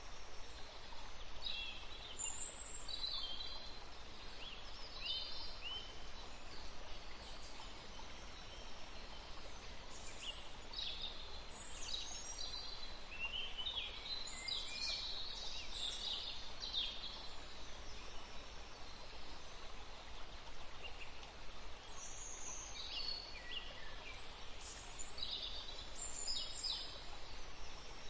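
Faint bird chirps coming in scattered, irregular bursts over a steady background hiss.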